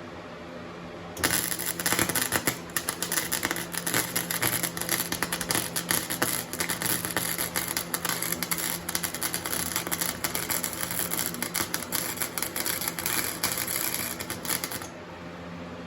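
Flux-core arc welding with a Harbor Freight Flux 125 welder: a dense, steady crackle of the arc that starts about a second in and stops suddenly about a second before the end. The welder's cooling fan hums underneath.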